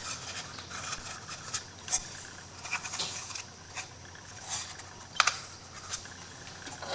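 Light handling noises on a work table: small scrapes, rubs and scattered clicks as pieces of an MDF wood shadow box are moved about, with a sharper knock about five seconds in.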